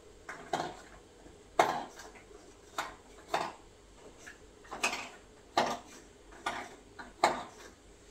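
Small hard containers clinking and knocking together as they are handled, about eight sharp clinks at irregular intervals.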